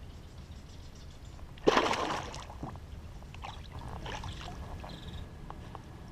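A sudden loud splash on the water about two seconds in, followed by a few smaller splashes and drips.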